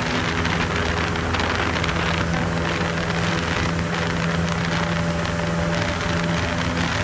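Cessna 172's piston engine and propeller droning steadily in flight, with a rush of air over the airframe, heard from inside the cabin.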